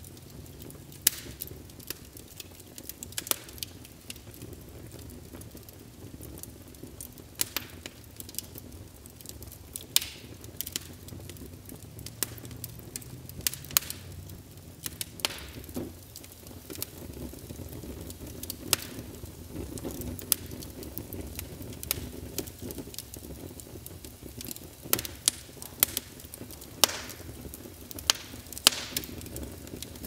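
Fire crackling: irregular sharp pops and snaps over a low, steady rumble of flames.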